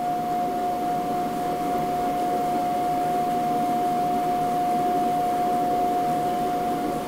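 Stepper motor driving the glass rod puller's lead-screw carriage very slowly downward during its homing run toward the lower limit switch. It makes a steady, single-pitched whine over a low hum.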